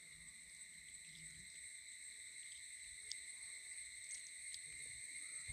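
Faint, steady high-pitched insect drone, with a few faint ticks in the middle.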